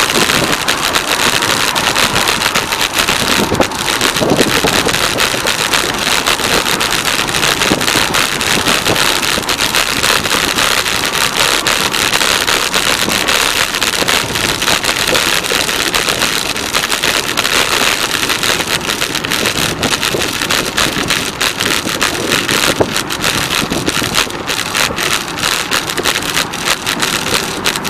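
Steady rushing noise of riding a bicycle: wind buffeting the camera's microphone, mixed with the drone of highway traffic alongside.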